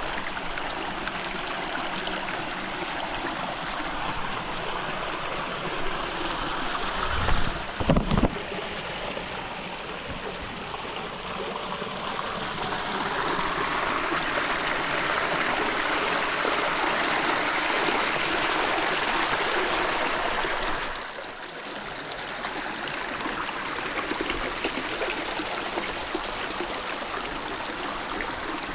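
River water rushing and gurgling over rocks in a steady stream, growing louder for several seconds in the middle and dropping back suddenly about two-thirds of the way in. A few low thumps about a quarter of the way in are the loudest sound.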